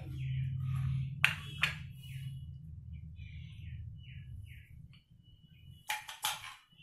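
A small bird chirps over and over in short, falling notes above a steady low hum. A spoon clinks sharply twice against the glass serving dish a little over a second in, and clatters again near the end as rasmalai is scooped onto the plate.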